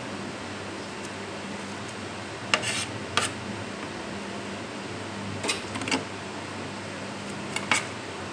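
Kitchen knife blade clinking and scraping on a plate while small sardines are cut up: a few short, sharp clicks and scrapes, in pairs, over a steady background hum.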